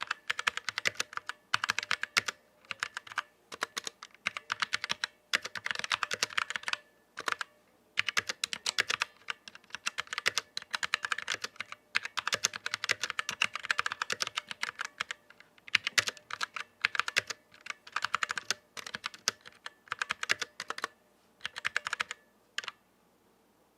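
Vortex Series VX7 mechanical keyboard with stock tactile Outemu Brown switches being typed on: quick runs of key clicks in bursts separated by short pauses. The typing stops about a second before the end.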